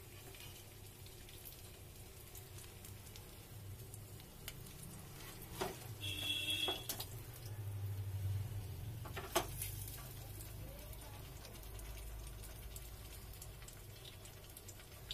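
Bread patty shallow-frying in oil on a flat pan, a faint sizzle, with a couple of sharp clicks of a metal spatula against the pan and a short high-pitched tone about six seconds in.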